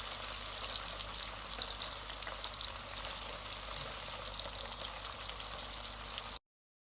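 Fatty beef frying in a pan, a steady sizzle with frequent small pops of spitting fat. The sound cuts off abruptly near the end.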